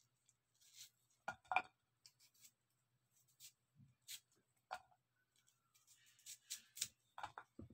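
Faint, irregular crisp scrapes and clicks of a serrated kitchen knife peeling and trimming a white onion held in the hand, with a few louder scrapes about a second and a half in and again near the end.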